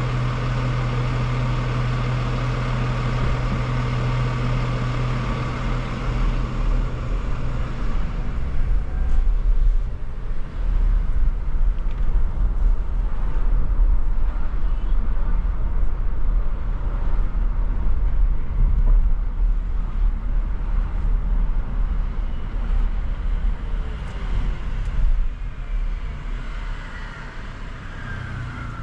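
Car driving on city streets. A steady low hum lasts for the first several seconds, then louder, uneven road and engine noise takes over from about eight seconds in and eases off near the end.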